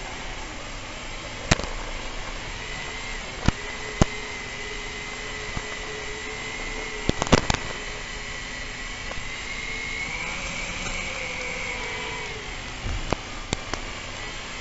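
FPV drone's electric motors and propellers whining steadily, the pitch drifting up and down with the throttle and rising for a couple of seconds near the end. A handful of sharp clicks cut through, a quick cluster of them about halfway.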